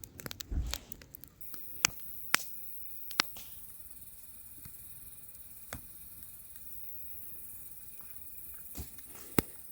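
Wood campfire crackling: a quick run of sharp pops and snaps in the first second or so, then single loud pops every second or two over a faint steady hiss.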